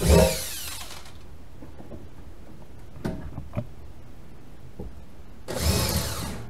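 Cordless drill boring a hole into the metal of a pickup bed's side wall. It runs and winds down about a second in, a few light clicks follow, and it runs again briefly near the end.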